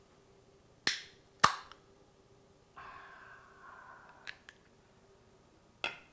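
Aluminium beer can opened by its pull tab: two sharp cracks about a second in, then about a second and a half of fizzing hiss as the carbonation escapes, and a few lighter clicks of the tab and can.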